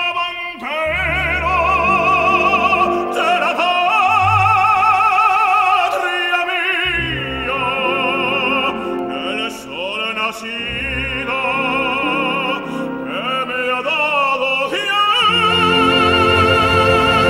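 Operatic tenor singing an aria with orchestra, phrases of long held notes with wide vibrato, breaking briefly between phrases, and going into a long sustained note near the end.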